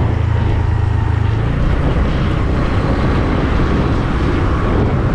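Motorcycle running steadily at road speed, with wind rushing over the microphone; a low engine hum sits under the wind noise and eases slightly after about a second and a half.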